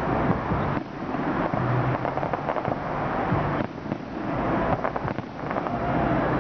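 Aerial fireworks bursting overhead: a dense, continuous run of bangs and crackle, with a cluster of sharp cracks about five seconds in.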